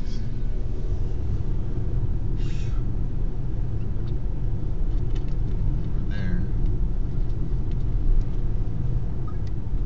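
Steady low rumble of road and engine noise inside a moving Hyundai car's cabin, with two brief faint higher sounds about two and a half and six seconds in.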